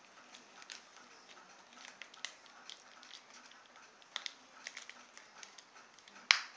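Light clicks and ticks of small plastic parts as a toy helicopter's body is handled and prised apart by hand, with one sharp, much louder click near the end.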